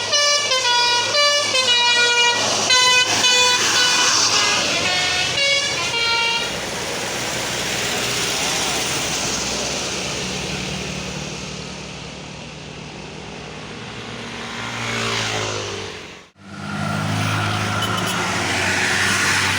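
A bus's Basuri 'telolet' multi-tone horn plays a quick tune of stepped notes for about six seconds. The bus's engine and tyre noise then carries on. After a sudden break about sixteen seconds in, the engine is heard running again.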